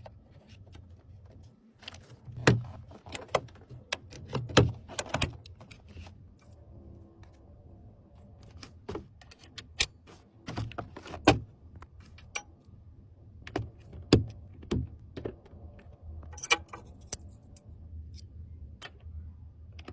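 Irregular clicks, taps and small knocks of computer hardware being handled and fitted during a PC build, a few of them sharper and louder.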